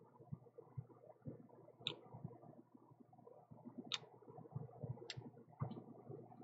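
Faint handling noise of glass nail polish bottles on a desk: soft knocks and about four sharp clicks as bottles are touched, picked up and set down.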